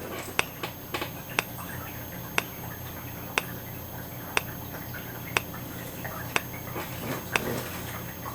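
EST Integrity 2028AT enhanced remote strobe flashing, a sharp tick with each flash about once a second. Under the ticks runs a steady high-pitched squeal from its charging capacitor, with no buzz.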